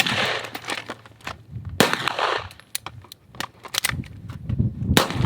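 Gunshots from rifles and pistols fired in quick succession by shooters side by side. Loud shots come at the start, about two seconds in, twice close together near four seconds, and again near the end, with many fainter shots between.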